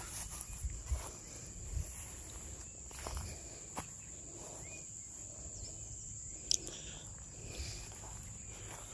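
Steady high-pitched insect drone, with footsteps and scattered small snaps and knocks, one sharper click about two-thirds of the way through.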